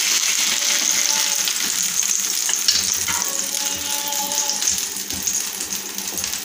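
Hot oil sizzling steadily in a frying pan under a whole shallow-fried fish as it is lifted out, with a few clicks and scrapes of spatulas against the pan.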